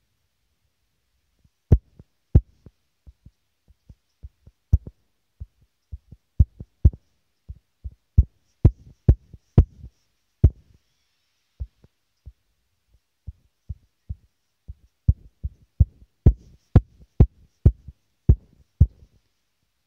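Irregular dull taps and knocks of a finger on a phone's touchscreen while drawing, picked up through the phone's own microphone, one to three a second, thinning out for a few seconds in the middle.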